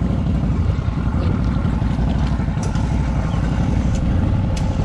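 An off-road vehicle's engine running steadily at a low rumble, with a few sharp clicks in the second half.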